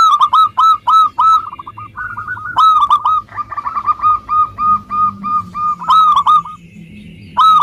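Local zebra dove (perkutut) singing its cooing song: loud runs of quick, hooked repeated notes in several phrases, with a short break near the end before it starts another phrase.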